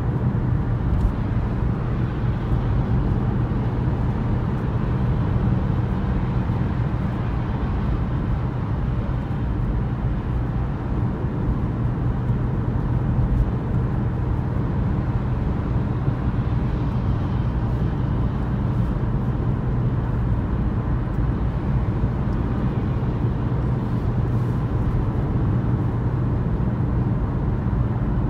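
Audi Q3 2.0 TDI four-cylinder diesel cruising on a motorway at about 2,000 rpm, heard from inside the cabin: a steady low engine hum under even tyre and road noise.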